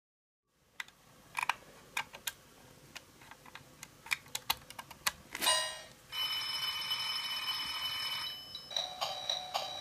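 Scattered clicks as the switches and dial of a model-train sound controller are set, then a steady electronic ringing tone for about two seconds from the controller, followed near the end by quick pulsing electronic tones.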